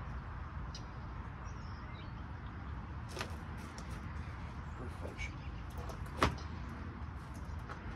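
Steady low outdoor rumble, with scattered light clicks and one sharp knock about six seconds in, from clothes and a plastic laundry basket being handled at a wooden table.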